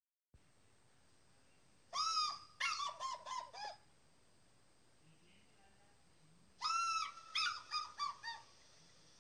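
Bald eagle calling in two bouts, about two seconds in and again past the middle: each bout is a quick series of high, piping notes that rise and fall, lasting under two seconds.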